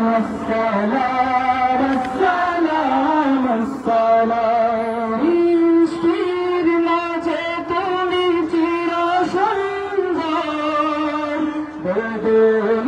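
Islamic devotional song (gojol) being sung: a melodic vocal line that rises and falls in ornamented phrases over a held lower note, with no words made out.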